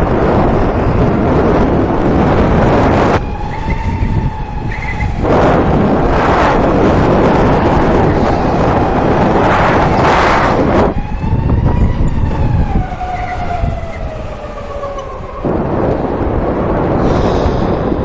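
Electric go-kart motor whining, its pitch gliding up and down with speed, under stretches of loud rushing noise from the kart at speed.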